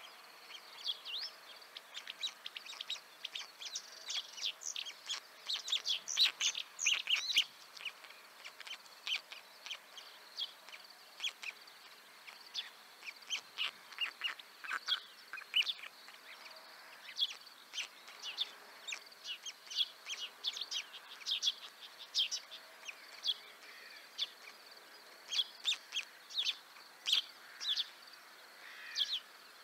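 Small songbirds chirping and singing, many short high notes overlapping from several birds, densest about six to seven seconds in.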